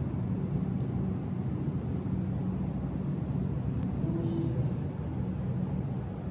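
A steady low mechanical hum, with a faint click about four seconds in.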